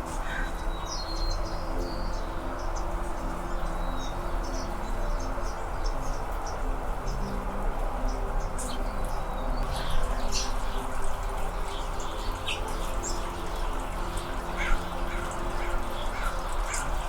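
Anna's hummingbirds giving short, sharp, high chip calls, scattered irregularly and thickest around the middle and near the end, over a steady background hiss.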